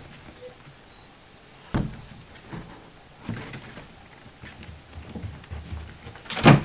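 Shetland sheepdog puppies playing: scattered thumps and scuffles, with one loud bump near the end.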